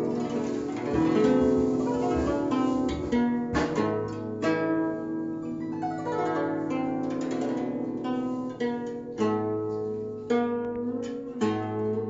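Guzheng played by hand: plucked notes ringing over held low bass notes, with quick sweeping runs across the strings a few seconds in, and left-hand pitch bends bending notes near the end.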